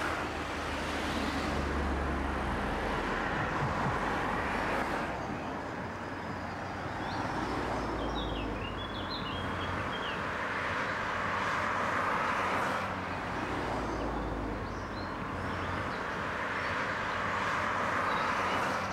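Urban traffic noise: a steady wash of road traffic with cars swelling and fading as they pass, and a few short bird chirps about halfway through.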